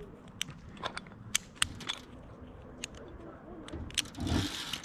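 Climbing gear being handled against pine bark: scattered sharp clicks and scrapes, with a louder rustling scrape about four seconds in.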